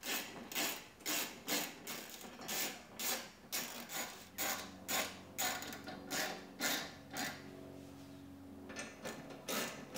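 Ratchet wrench clicking in short swings, about two a second, as it tightens the screws holding the exhaust tips into the bumper; it pauses for a second or so near the end, then clicks a few more times.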